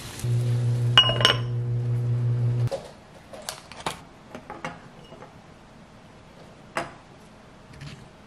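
A steady low hum for the first two and a half seconds, with a sharp ringing clink about a second in. Then scattered light clinks of a glass pot lid and utensils against an enamelled cast-iron pot.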